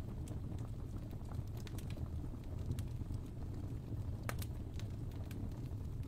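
Wood fire crackling in a fireplace: a steady low rumble of flames with scattered sharp pops, one louder pop a little over four seconds in.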